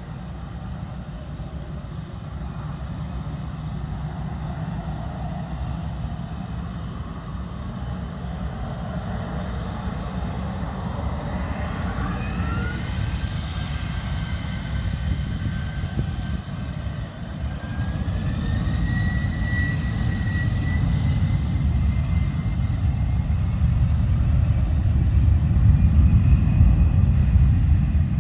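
Twin jet engines of an Airbus A320 airliner spooling up for take-off. A low rumble grows steadily louder, a whine rises in pitch about halfway through, and the sound is loudest near the end as the plane accelerates down the runway.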